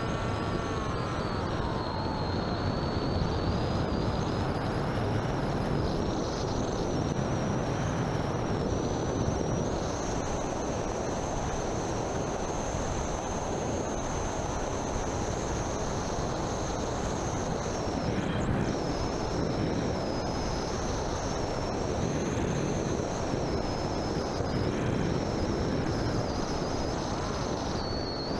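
Onboard sound of an FPV model aircraft in flight: a high-pitched electric motor and propeller whine that rises and falls with the throttle, over steady wind rush on the camera's microphone. The whine falls in pitch in the first couple of seconds and dips briefly about two-thirds of the way through.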